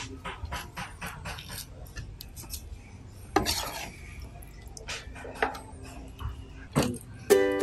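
A spatula clicking and scraping against a metal wok as sticky, sauce-coated fried chicken feet are lifted out, with a longer, louder scrape about three and a half seconds in. Plucked-string music comes in right at the end.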